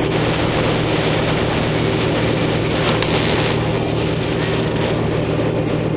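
Arc welding on steel tubing: a steady crackling hiss over a low electrical hum.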